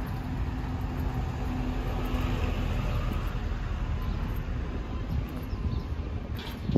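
City street traffic: a steady low rumble of vehicles on the road, with an engine hum in the first half while a bus is alongside, and a brief sharp click near the end.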